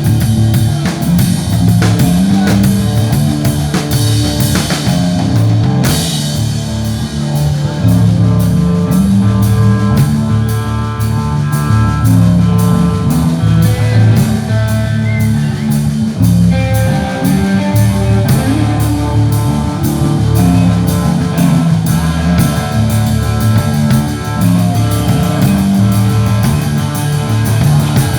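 Rock band playing live: a drum kit keeping a steady, busy beat under a bass line and guitar, with little or no singing.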